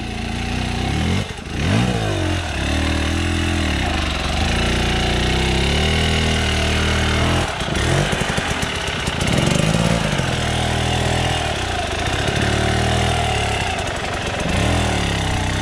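Enduro dirt bike engine being ridden, revving up and dropping back several times between steadier stretches of throttle.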